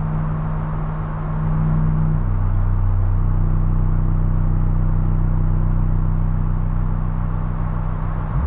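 Live experimental electronic drone: deep, sustained low tones that shift to a new pitch about two seconds in, with a short upward glide near the end.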